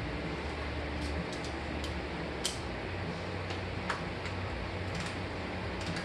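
Steady low background hum with a few scattered light clicks and ticks of tools and parts being handled under the hood of a car during radiator removal. The sharpest click comes about two and a half seconds in.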